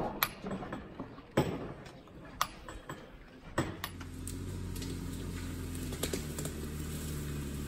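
A few sharp knocks, about a second apart, then from about halfway a Jeep Wrangler Unlimited's engine running steadily.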